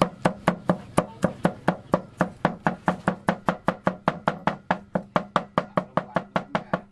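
Meat cleaver chopping rapidly on a round wooden chopping board, mincing food in an even rhythm of sharp knocks, about five a second.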